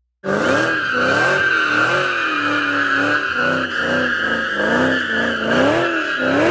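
Shelby GT500's supercharged V8 doing a burnout. The rear tires squeal steadily while the engine revs rise and fall again and again. It starts suddenly.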